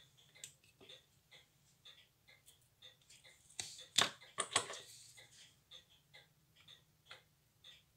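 Tissot pocket watch movement ticking: quick, even ticks of the running balance and escapement. About four seconds in, a louder clatter of tool handling covers the ticking for about a second.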